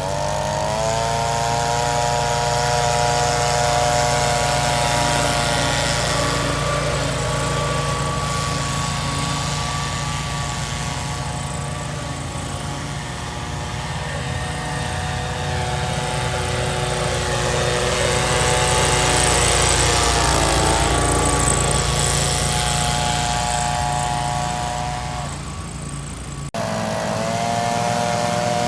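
John Deere lawn mower engine running steadily; its hum climbs in pitch at the start, then holds, with a short break near the end before it picks up again.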